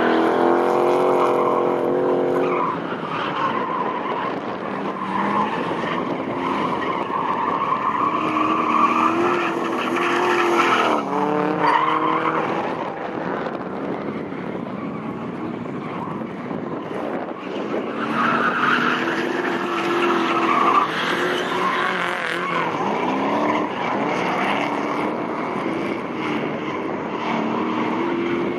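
Rear-wheel-drive S13 Nissan hatchback drifting: the engine revs up and down with the throttle while the spinning rear tyres squeal and skid. The engine pitch swings repeatedly, with a sharp drop about eleven seconds in.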